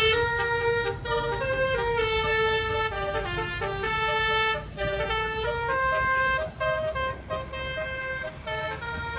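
Basuri telolet horn on a bus playing a melody, its multi-tone air-horn notes stepping from pitch to pitch, over a steady low rumble.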